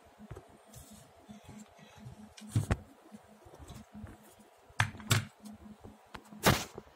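Handling noise from the phone and card being moved: four sharp knocks and rubs. One comes a little under three seconds in, two close together about five seconds in, and the loudest near the end, over a faint low hum.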